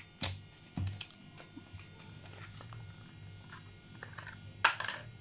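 Small cardboard lipstick box being opened by hand and a clear plastic tube pulled out of it: a scattered series of light clicks, taps and crinkles of card and plastic, the loudest about four and a half seconds in.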